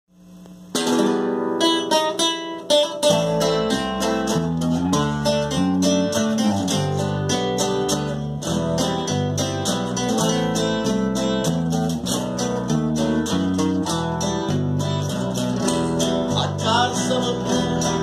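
Two nylon-string classical guitars playing a song's instrumental introduction, starting just under a second in, with an electric bass guitar joining about three seconds in.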